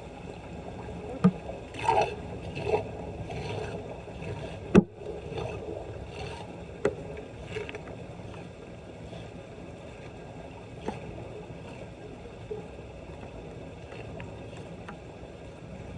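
Floodwater sloshing steadily, broken by a handful of sharp knocks and splashes, the loudest about five seconds in, as debris is worked loose at a clogged street drain.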